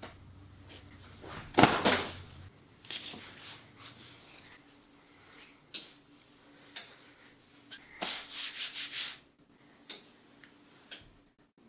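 Cloth apron rustling and rubbing as it is handled, pulled on and tied, in a series of short swishes; the loudest comes about one and a half seconds in.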